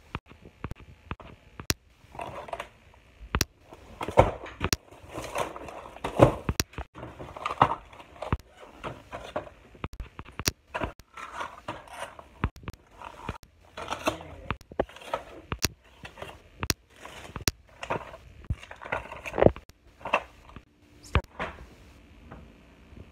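Plastic snack packs crinkling and clicking as they are handled and stacked into a clear plastic organizer bin, with irregular rustling and sharp plastic clicks throughout.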